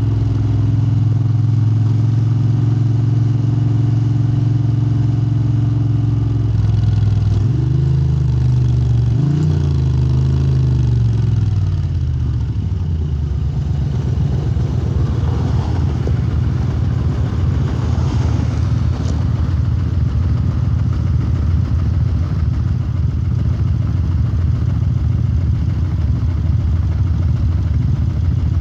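Moto Guzzi V-twin running through Lafranconi silencers. It holds a steady note for several seconds, rises and falls in pitch twice, then settles into a lower, rougher rumble.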